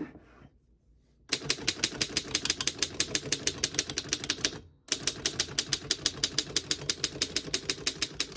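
1915 Underwood No.5 manual typewriter being typed on: fast, even keystrokes of the typebars striking the platen, about nine a second, in two runs with a short pause near the middle.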